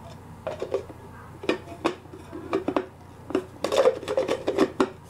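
Hard plastic clicks and clatter as the clear chopper bowl, blade and lid of a Wolfgang Puck Bistro immersion blender's chopper attachment are handled and twisted, trying to get them to seat together. A few separate knocks come early, then a quicker run of clattering near the end.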